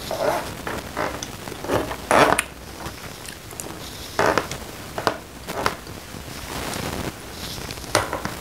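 Metal spoon scraping and clinking against a serving tray as leftover sauce and rice are gathered up, in several short strokes, with a sharper knock near the end as the spoon is set down.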